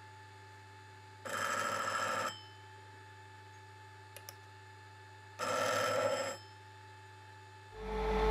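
A telephone rings twice, each ring about a second long and about four seconds apart, over the low steady hum of a spinning lapping machine.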